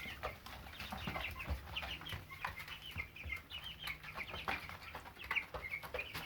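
A flock of three-week-old Cornish Rock Cross broiler chicks peeping continually in many short, high chirps, with scattered light clicks among them.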